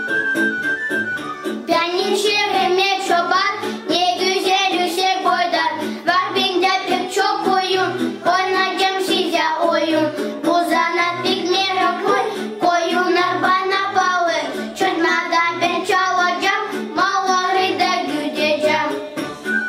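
Two children singing a song together over instrumental backing; the singing starts about two seconds in, after a few seconds of a steady high woodwind-like note.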